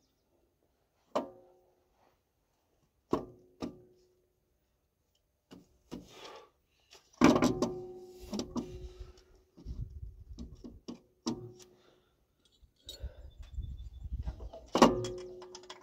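Irregular sharp metal clinks and knocks as a tool and bolt strike a new alternator and its mounting bracket while the alternator is bolted onto a tractor engine. Several clinks ring briefly at one pitch, with the loudest one near the end, and there is low scraping and handling noise in between.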